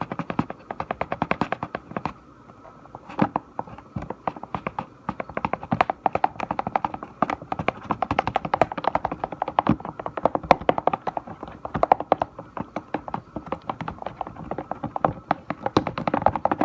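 A stick stirring slime mixture in a container, making rapid, irregular tapping and clicking as it knocks against the container, with short pauses a couple of times. The glue mixture is being worked with contact-solution and baking-soda activator as it turns into slime.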